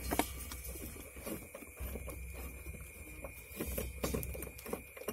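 Small clicks and scrapes of plastic and metal as a cigarette-lighter socket is twisted into its mounting in a plastic dashboard panel.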